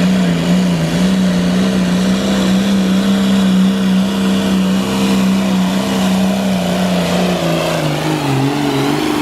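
Farm pulling tractor's diesel engine running flat out under load, a loud, steady high-revving note. About seven and a half seconds in, the pitch sags and wavers as the engine is pulled down.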